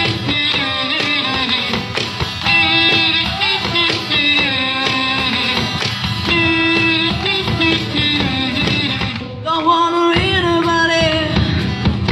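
Live acoustic duo performing a song: acoustic guitar accompaniment with a lead voice singing over it, with a brief lull about nine seconds in.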